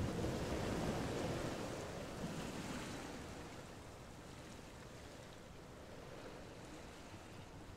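Soft rustling of cloth as a lace-trimmed garment neckline is handled and folded. It is louder at first and dies down to a faint rustle after about three seconds.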